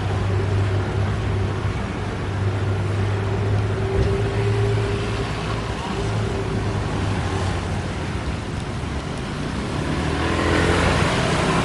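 Road traffic noise: motor vehicle engines running steadily with a low hum, with faint voices in the background.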